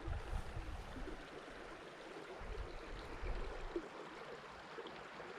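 A small mountain creek's water running, a steady, even rush.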